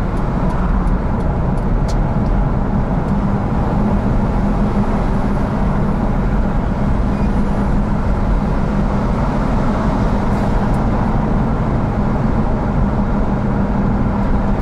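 Steady engine and tyre noise heard inside a car driving at speed along a city road, with a constant low hum.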